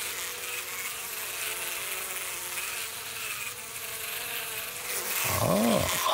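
Flies buzzing steadily around a rotting, maggot-infested kudu carcass. Near the end the buzz grows louder, its pitch rising and then falling.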